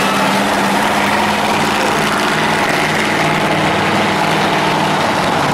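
A heavy engine idling steadily, with a loud noisy wash over it from the arena.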